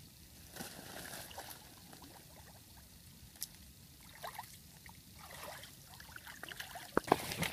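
Hands moving through shallow muddy water, with soft sloshing, dripping and trickling, and a few sharper, louder splashes near the end.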